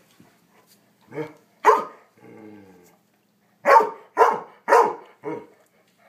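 A dog barking in play. Two barks are followed by a short, low growl. Then comes a run of four sharp barks, about two a second.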